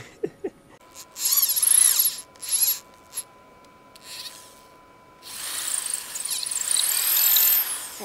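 Handheld electric drill boring a 10 mm hole into a wooden ball, run in short bursts about a second in and around two and a half seconds, then a longer run from about five seconds on, its whine rising and falling in pitch as it bites into the wood.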